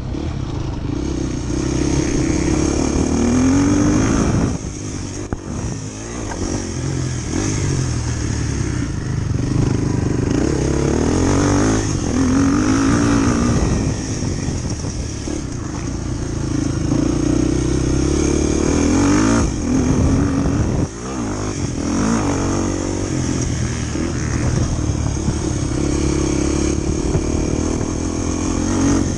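Motorcycle engine running under changing throttle, revving up and easing off several times, with brief drops about four seconds in and again around twenty seconds in.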